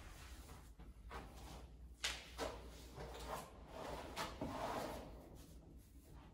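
Clunks and rustling as a pair of plate-loaded dumbbells is handled and a man settles back onto a flat weight bench, with one sharp knock about two seconds in.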